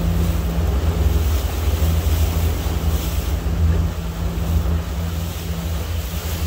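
Small motorboat under way: its motor runs at a steady pitch while wind buffets the microphone and water rushes past the hull.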